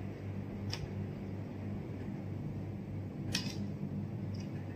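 Two brief crisp, wet sounds of a man eating a slice of watermelon, one about a second in and a sharper one past three seconds. A steady low hum runs underneath.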